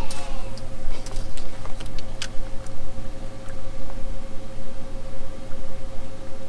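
A boat's motor running steadily, a low hum under a constant whine, with a few sharp clicks in the first couple of seconds.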